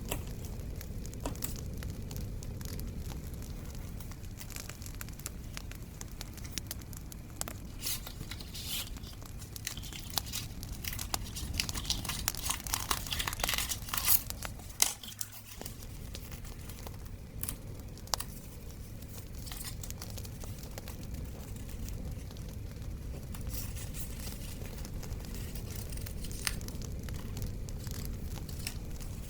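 Paper being handled by hand, crinkling and tearing, busiest in the middle, over a steady low bonfire sound.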